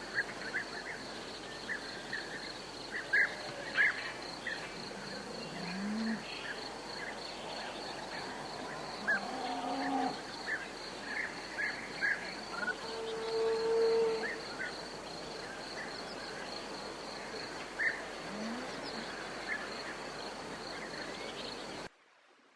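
Birds chirping in short repeated calls, probably the parrots the video is about, over a steady fast-pulsing insect trill, with a few lower calls in between. The sound stops abruptly just before the end.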